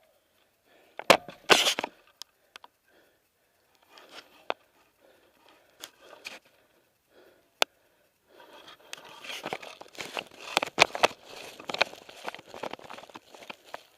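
Crunching and rustling of dry leaves, twigs and brush underfoot with scattered sharp snaps. There is a loud cluster about a second in, and the crunching grows denser from about eight seconds in.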